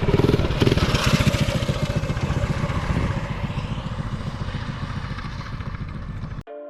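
Small single-cylinder four-stroke minibike engine running hard close by, its rapid, even firing loudest near the start and growing gradually fainter. It cuts off abruptly near the end.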